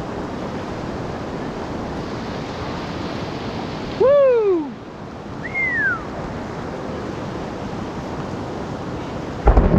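Steady rushing of river current and rapids. About four seconds in, a loud short whooping call rises and falls, followed a second later by a fainter, higher swooping call; near the end a sudden low rumble breaks in.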